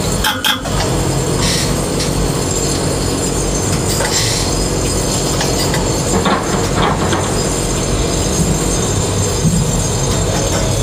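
Tower crane machinery running, heard inside the operator's cab: a steady mechanical drone with whining tones layered over it, and a few faint knocks.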